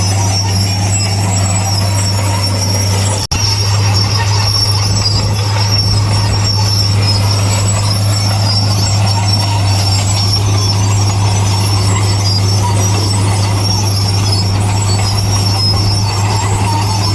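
Heavy construction machinery running steadily: a low engine drone with a steady high-pitched whine over it, broken by a brief cutout about three seconds in.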